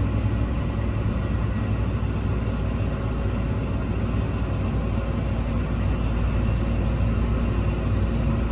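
Tractor engine running at a steady, even pace: a constant low drone with no change in speed.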